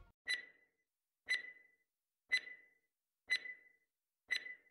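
Quiz countdown timer ticking once a second, five times. Each tick is a sharp click with a brief ring.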